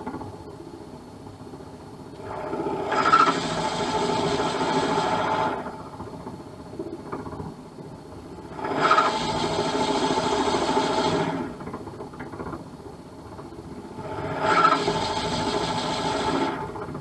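Drill bit boring into an acrylic pen blank spinning on a SIP 01936 lathe: the lathe runs steadily, and three times the bit is fed in and cuts with a loud rasping whine for about three seconds, then is drawn back to clear the chips.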